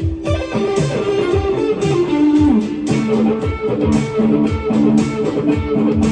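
Electric guitar played through a Friedman BE-OD Deluxe overdrive pedal: a driven lead line of held notes and short slides over a steady drum beat.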